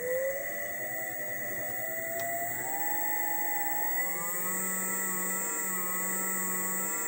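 ME1616 electric drive motor on a Sevcon Gen4 controller spinning up in gear: a whine that rises gradually in pitch over several seconds rather than jumping straight to full speed, then holds near the top with a slight waver. A steady high-pitched tone runs under it.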